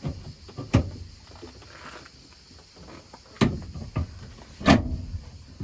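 Three knocks, about a second, three and a half and nearly five seconds in, with quieter handling noises in between, from the newly upholstered seat being fitted into place.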